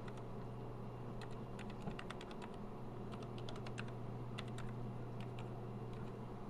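Keys being typed on a TRS-80 Model 12 keyboard with replaced foam key pads, a quick irregular run of clicks that starts about a second in and stops near the end, over a steady low hum. The keys are registering properly again.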